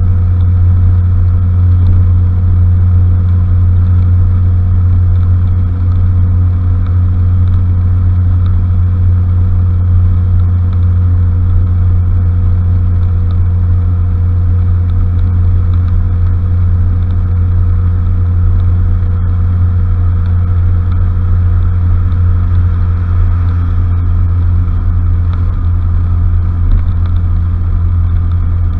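Honda Fusion scooter's single-cylinder four-stroke engine running at a steady cruising speed, a low, even drone that holds throughout.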